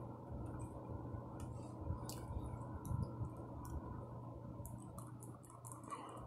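Chewing gingerbread and candy close to the microphone: scattered small crunches and wet mouth clicks over a steady low hum.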